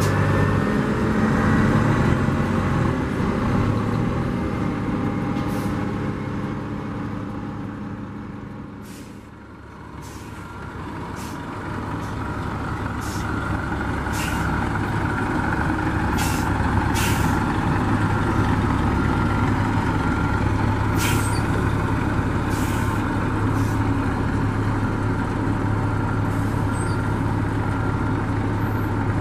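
A diesel transit bus pulls away and fades out over the first nine seconds or so. Then a Nova RTS transit bus idles steadily, with repeated short, sharp hisses of air from its air brake system.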